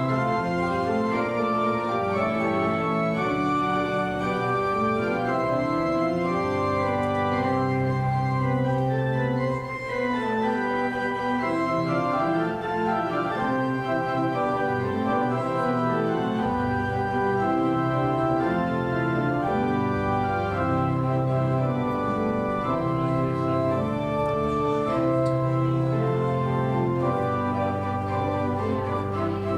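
Church organ playing a continuous piece of held chords that change every second or so over a sustained bass line, at an even loudness.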